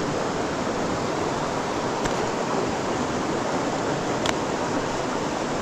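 Steady rush of a flowing river, with two faint clicks about two and four seconds in.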